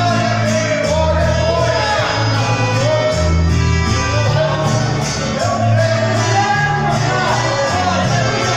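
A song: a held melody line over changing bass notes and a steady beat.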